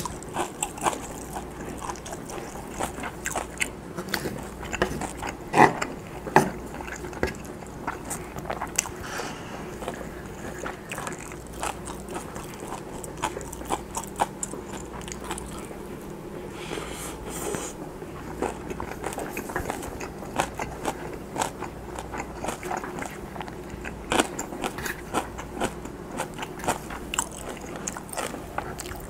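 Close-up chewing and wet mouth sounds of someone eating pan-fried Spam with rice and stir-fried kimchi, full of scattered sharp clicks. Chopsticks and a wooden spoon tap and scrape against a wooden bowl.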